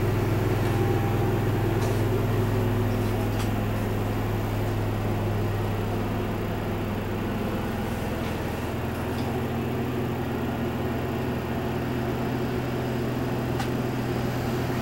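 Steady low mechanical hum of machinery running in the motorhome, a drone with fixed tones that eases slightly about halfway through, with a few faint clicks.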